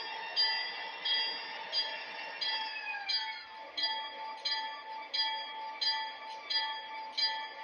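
Locomotive bell ringing steadily from an M.T.H. DDA40X model's Proto-Sound 3 sound system, about three strokes every two seconds, over the model's diesel rumble. A single tone slides down in pitch about three seconds in.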